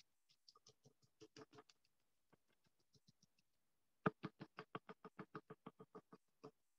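Crumpled aluminium foil dabbed repeatedly onto a canvas panel with acrylic paint: quiet, scattered taps at first, then from about four seconds in a quicker run of about seven taps a second.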